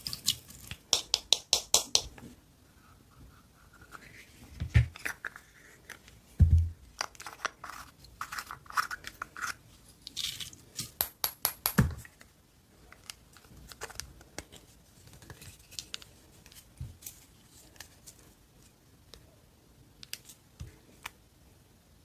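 Slime being squeezed and pressed, giving runs of quick sharp clicks and pops with a few low thumps, thinning to scattered quieter clicks in the second half.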